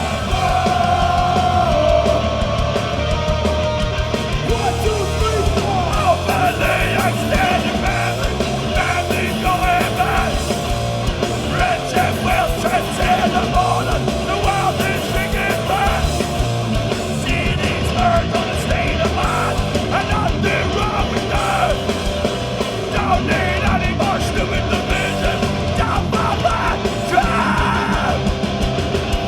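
Hardcore punk band playing live and loud: distorted guitars, bass and drums, with shouted vocals over them.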